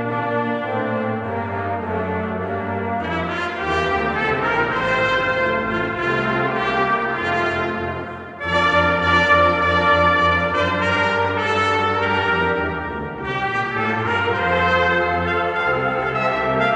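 A brass choir of trumpets, trombones and tuba playing held chords together. The sound dips briefly a little past halfway, then comes back in louder.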